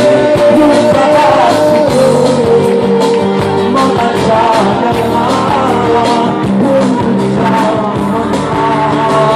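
Live amplified music: a male voice singing a melody over band accompaniment through a PA system.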